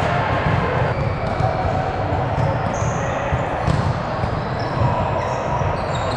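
Volleyball gym ambience: balls thumping on the hard court floor, short high sneaker squeaks and players' voices throughout.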